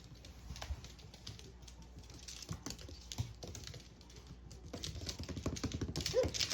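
Quick, light clicking and tapping, like small hard things knocking on a hard surface, getting busier and louder in the last couple of seconds.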